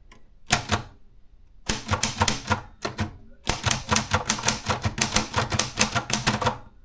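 Maritsa 30 hyperportable typewriter being typed on: key strikes come in short runs, then a long rapid run over the last three seconds.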